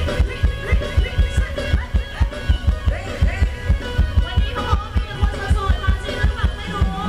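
Live Thai ramwong dance music from a band amplified over a loud PA, with a fast, steady drum beat and a singer's voice over it.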